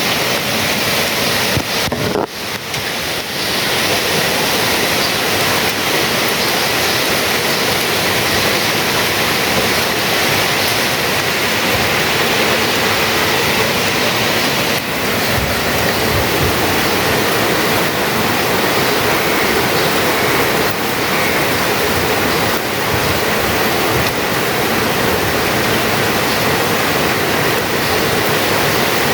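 Heavy thunderstorm rain making a loud, steady rushing noise, with a brief dip about two seconds in.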